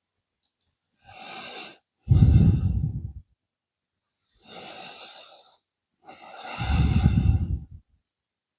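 A person breathing close to the microphone: two slow breaths, each a quieter in-breath followed by a louder, sighing out-breath that blows onto the mic.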